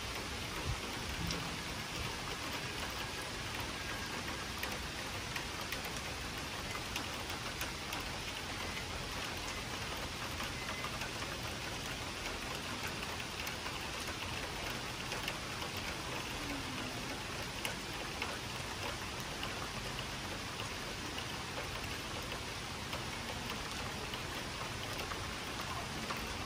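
Steady summer rain falling: an even hiss with scattered drop taps.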